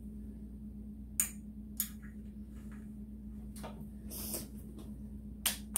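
A handful of sharp light metallic clicks and taps, scattered a second or so apart, as a ground cable is fastened to a motorcycle battery terminal, over a steady low hum.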